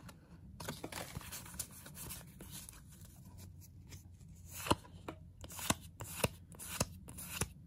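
Pokémon trading cards being handled and slid one past another, soft rubbing with scattered sharp clicks, a few of them louder from about halfway through.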